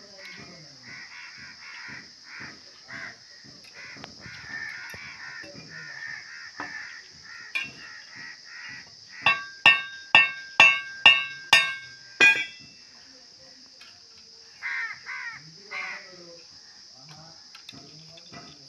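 A crow cawing: a run of seven loud, harsh caws about half a second apart, past the middle. Before them come light, regular cutting taps of a blade on wood.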